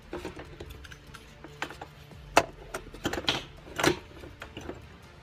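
Irregular plastic clicks and knocks as a car's in-tank fuel pump module is freed by hand and lifted out through its opening, with two sharper knocks about two and a half and four seconds in.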